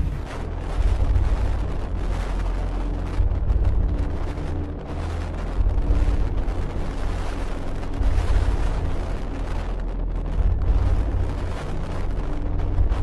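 Strong wind buffeting the microphone in heavy rumbling surges, over rough sea with waves breaking on the rocks.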